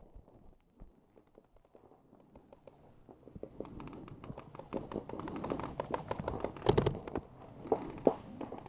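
Paintball gunfire: a rapid, irregular patter of sharp clicks and pops that thickens about three and a half seconds in, with a few louder shots near the end.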